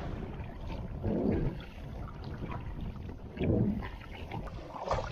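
Double-bladed kayak paddles dipping and splashing into river water, about one stroke every two seconds, with drips and small splashes between strokes, over a steady low rumble of wind on the microphone.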